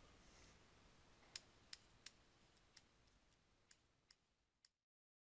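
Faint, irregular clicks of a stylus tapping a tablet screen while handwriting, about seven in all, over a near-silent background.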